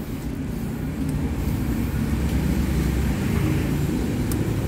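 Low, steady rumble of a vehicle running nearby, growing slightly louder, with a couple of faint clicks near the end.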